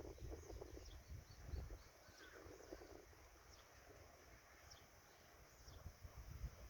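Faint, scattered high chirps of small birds over a low, uneven rumble like wind on the microphone.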